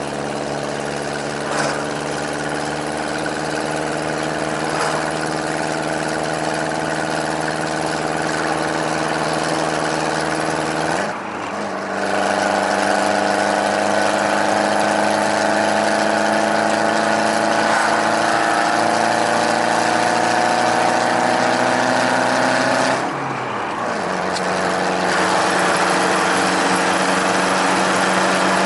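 Subaru Sambar TT kei truck's 660 cc four-cylinder engine running through a home-made split-manifold dual exhaust with Caubton-style mufflers, a deep rumbling note heard from inside the cab. The note briefly drops and changes pitch twice, about a third of the way in and again near the end, as gears are shifted, and climbs slowly in between as the truck pulls.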